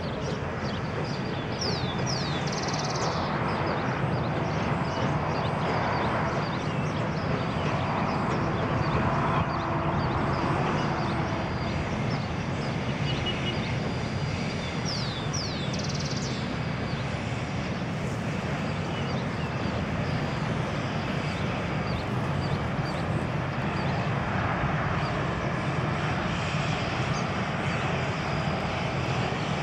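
Distant steam-hauled train, with Baldwin locomotive No. 820 at its head, rolling across a steel viaduct: a steady low rumble. A bird chirps briefly twice, early and about halfway through.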